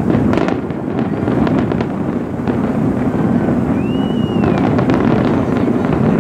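Aerial fireworks display: shells bursting and crackling over a steady low rumble, with quick runs of sharp cracks near the start and again about two thirds of the way through. A brief whistle rises and falls about four seconds in.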